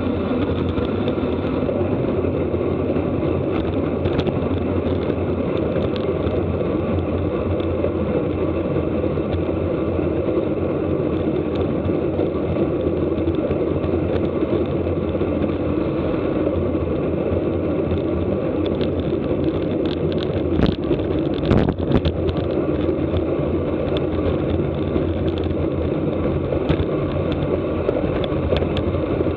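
Steady rush of wind and road noise on the camera of a road cyclist riding at race speed, with a few sharp clicks about twenty seconds in.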